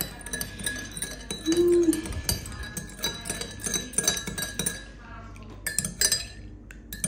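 Metal teaspoon stirring tea in a glass mug, clinking repeatedly and irregularly against the glass.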